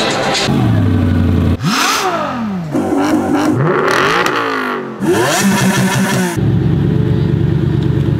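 Koenigsegg Regera's twin-turbo V8 heard in short clips cut together: revving with steep rises and falls in pitch, broken off abruptly several times. About six seconds in it settles into a steady idle.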